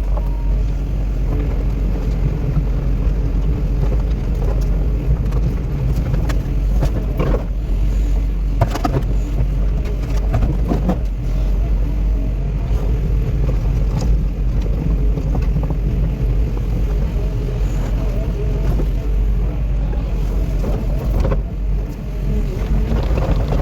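A vehicle engine running steadily, with a few sharp knocks or clanks over it.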